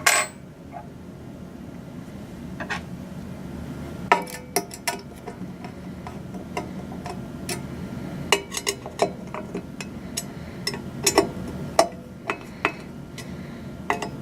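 Irregular metallic clicks and taps of a screwdriver and wrench working the screws that hold the feed transition to a metal dish bracket, thickest in the second half.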